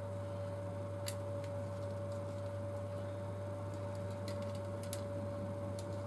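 A few faint, sharp clicks from a small precision screwdriver working the tiny screws of a DJI Mavic camera gimbal, one about a second in and several more near the end, over a steady electrical hum.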